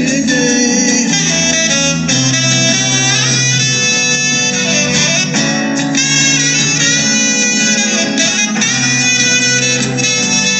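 Live band playing an instrumental passage without vocals: strummed acoustic guitar over electric keyboard chords, with saxophone.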